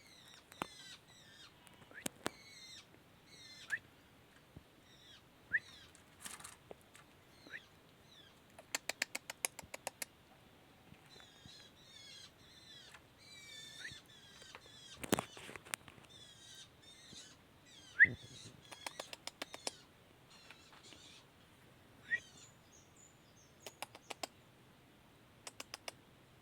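Long-tailed shrike (cendet) calling: a varied string of short squeaky, curved notes and sharp rising chips, broken by several quick rattling series of clicks.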